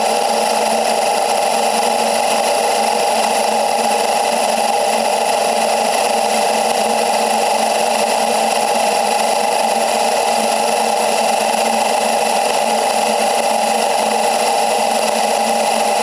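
Combine engine and grain-unloading noise in high-speed playback, so it runs as a steady, high-pitched mechanical whir with the low rumble gone.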